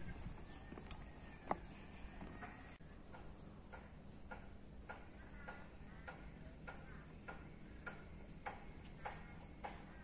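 Faint wildlife sounds: from about three seconds in, a thin, high chirp repeats evenly about three times a second, with faint short bird chirps under it. A single knock comes about one and a half seconds in.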